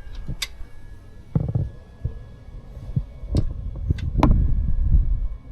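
Tools and metal parts being handled: several sharp metallic clinks and knocks, one about half a second in and a cluster between about three and four and a half seconds in, over low rumbling handling noise.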